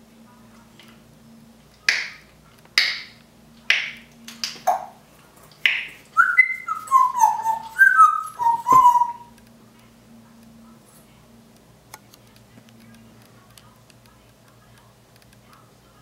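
African grey parrot making about six short, sharp clicking sounds. It then whistles a quick run of falling notes for about three seconds.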